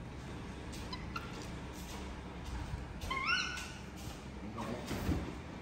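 Baby macaque calling: a few faint chirps about a second in, then one short high-pitched squeal about three seconds in that rises and then holds its pitch.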